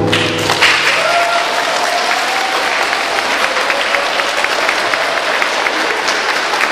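Flamenco music stops about half a second in, and an audience of schoolchildren applauds: a dense, steady patter of many hands clapping.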